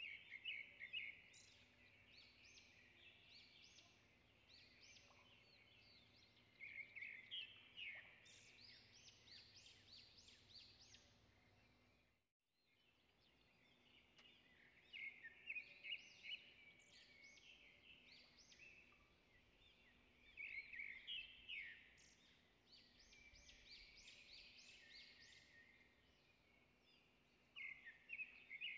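Faint birds chirping in the background in repeated bursts of quick, high chirps. The sound cuts out briefly about twelve seconds in.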